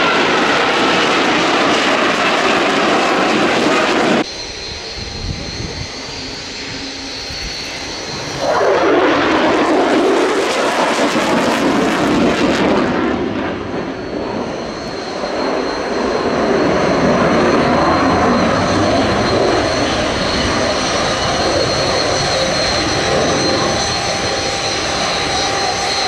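Loud jet noise from a Lockheed Martin F-35B Lightning's Pratt & Whitney F135 engine, first hovering on its lift fan. After an abrupt drop about four seconds in, it swells loudest as the jet makes a fast pass, from about eight to thirteen seconds in, then runs on steadily with a high whine as it flies away.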